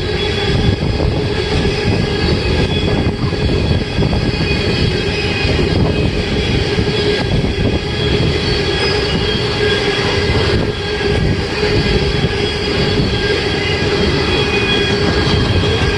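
Freight train rolling past: a steady loud rumble of wheels on rail, with a faint steady wheel squeal running over it.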